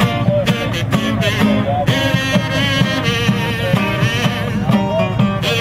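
Guitar music: a steady run of low bass notes under a higher melody that slides up and down in pitch.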